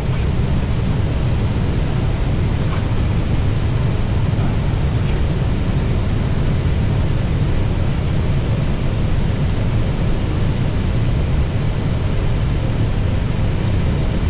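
Steady flight-deck noise of an Airbus A320neo on final approach: a constant rush of airflow over the cockpit with a low engine rumble underneath, unchanging throughout.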